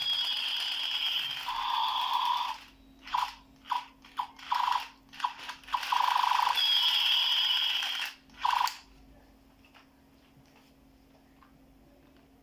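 Toy gun firing: a long buzzing burst, a run of short bursts, another long burst and a final short one, then it stops about nine seconds in.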